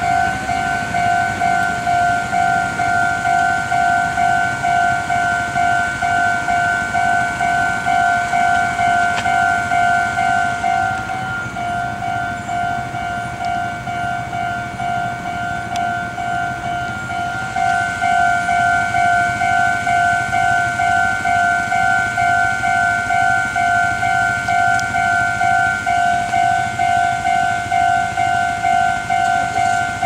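Japanese railway level-crossing alarm bell ringing with the barriers down, warning that a train is coming. It strikes at a steady rate of about three times every two seconds, and is quieter for a few seconds in the middle.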